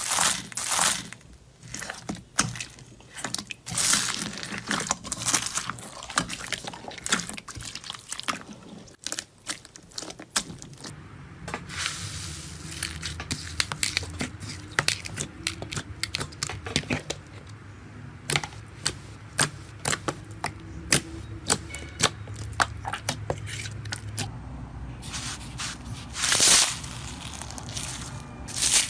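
Slime being squished, stretched and pressed by hand: irregular squishing and sticky swishes with many sharp little clicks and pops.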